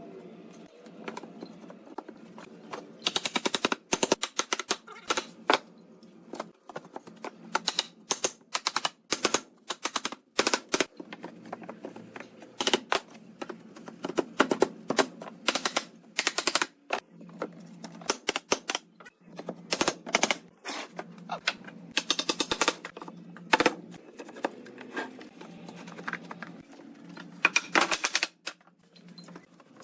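Irregular bursts of rapid, sharp knocks and clicks, some in quick runs, over a faint steady hum.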